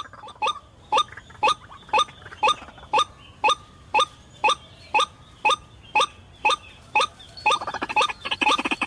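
White-breasted waterhen (ruak-ruak) calls: a short rising note repeated steadily about twice a second. About a second before the end, a denser, rapid sound comes in over the calls.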